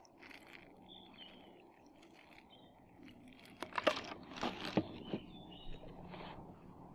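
Water poured from a plastic bottle into an AeroPress coffee maker, then the AeroPress shaken with the water inside. About three and a half seconds in, sharp plastic knocks and sloshing set in.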